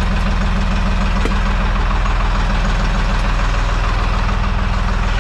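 Deutz-Fahr 55F tractor's diesel engine running at a steady speed.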